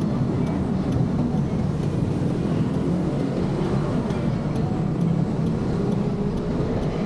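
Steady low rumble of wind and road noise from a moving motorcycle, with no clear engine note standing out.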